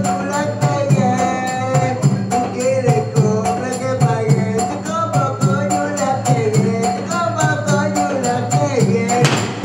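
Malay wayang kulit ensemble playing: a wavering serunai (shawm) melody over a steady drum pattern and a fast, even beat of small cymbals. A louder crash comes near the end.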